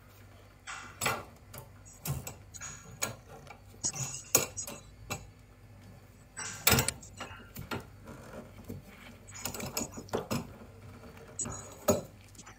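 Irregular metallic clinks, knocks and short scrapes of boiler gas pipework and fittings being handled and worked into place by hand.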